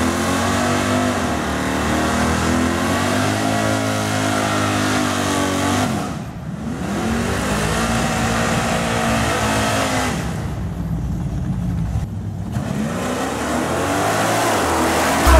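Camaro Z28's 5.7-litre LT1 V8 revved hard through a burnout at the drag strip, its pitch sweeping up and falling back several times, easing off about six seconds in and again around ten to twelve seconds; a second drag car's engine runs alongside.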